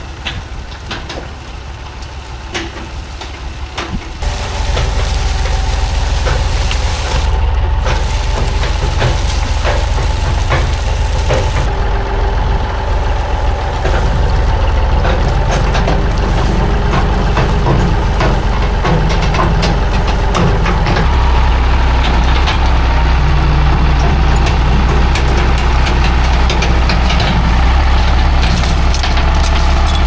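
Tractor engine running under load. It gets louder about four seconds in and stays heavy, with scattered clanks and knocks over it.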